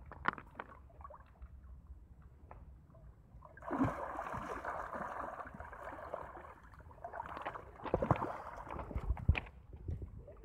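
Water splashing and sloshing in the shallows as a hooked bighead carp thrashes and is grabbed by hand. It comes in two spells of splashing, the first starting about four seconds in, with a few dull knocks near the end.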